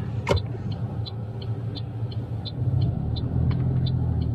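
Car engine running as the car pulls away, a steady low hum that grows louder about two and a half seconds in. A sharp click comes just after the start, and faint high ticks repeat about three times a second.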